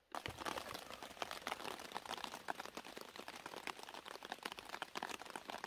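Rain pattering on a rain tarp: a dense, uneven patter of drops striking the fabric.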